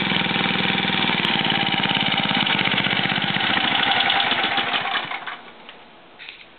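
Lawn mower engine running steadily, then shut off about five seconds in, its firing slowing and dying away.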